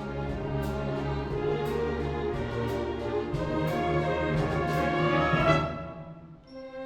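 Orchestral music with brass and strings, a light beat about once a second, building to a peak about five and a half seconds in, then dropping away briefly before softer notes resume.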